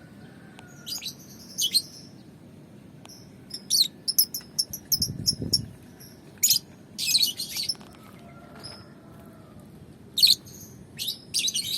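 Lovebirds chirping: clusters of short, sharp, high-pitched calls with pauses of a second or more between them. A brief low rumble comes about five seconds in.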